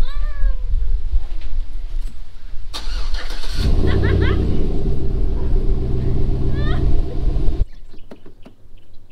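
Chevrolet Silverado pickup engine with a Borla exhaust being started: the starter cranks briefly, the engine catches about three and a half seconds in with a short rev, then settles to a steady idle. The sound cuts off abruptly near the end.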